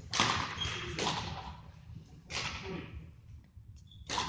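Badminton rackets striking a shuttlecock in a doubles rally: four sharp hits, roughly a second apart, each ringing on in the echoing sports hall.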